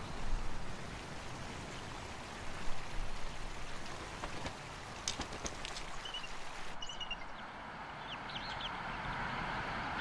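Steady hissing outdoor background noise, with a few faint, short chirps in the second half.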